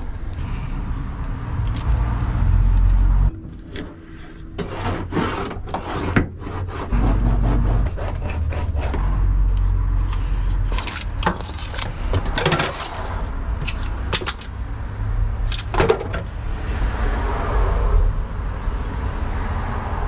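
Foil-backed sound deadener sheet being cut and worked into a car's boot floor: irregular scraping and crinkling over a steady low rumble.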